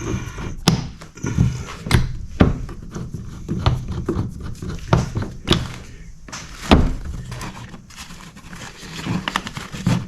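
Irregular knocks and clicks of hands working a kayak seat: its track nut being loosened and the seat frame handled. About a dozen sharp knocks, the loudest a little under 7 seconds in.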